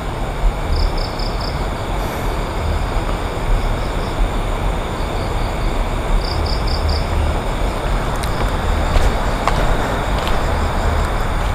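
Night forest ambience: a steady rushing noise under a thin, high insect drone, with quick runs of three or four high chirps every five or six seconds. A few light crackles come in the second half as someone walks over dry leaves.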